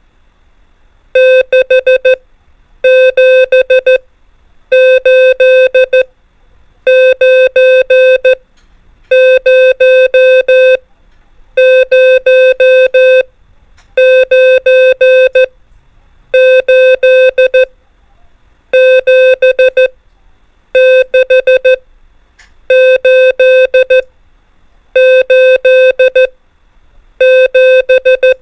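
Morse code (CW) practice tone sending numbers: groups of short and long beeps at one steady mid pitch, a group about every two seconds with a short pause between. Each group is one digit, sent as five dots and dashes.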